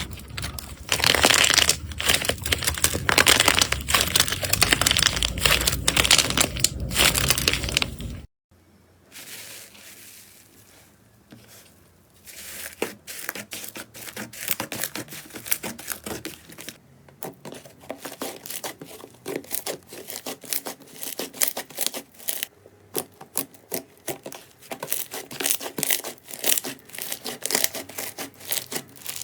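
Slime being squeezed and pressed by hand, giving a dense run of crackling, crunching pops. About eight seconds in, the sound cuts out briefly, then comes back as quieter, sparser popping clicks that grow busier toward the end.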